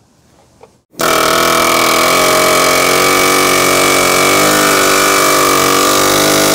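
Pneumatic air hammer starts about a second in and hammers continuously with a loud, steady buzz, driving an old bushing out of a front control arm (A-frame).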